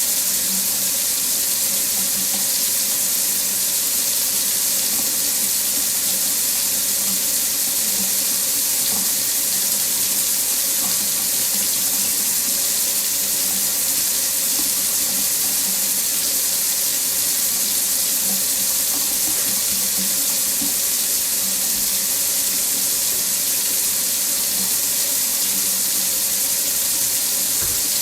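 Water tap running steadily into a sink, a constant even splashing rush of water with no change.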